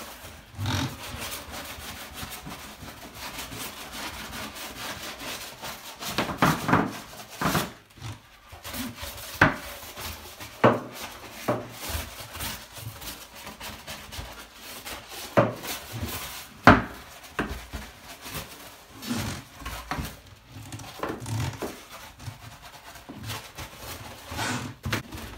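Nylon scrub brush scrubbing wet ceramic shower tile in uneven back-and-forth strokes, a rough rubbing with sharper scrapes here and there. This is the nylon pass that lifts the grey metal film left by a brass-bristle brush.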